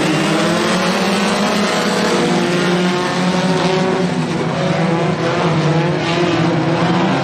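A pack of four-cylinder compact race cars running hard together on a dirt oval. Several engine notes overlap and rise and fall as the cars go through the turns.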